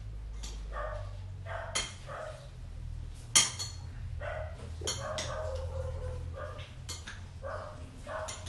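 Two serving spoons tossing a corn salad dressed with cream in a glass bowl: wet, squelching mixing strokes about twice a second, with a few sharp clinks of spoon on glass, the loudest about a third of the way in.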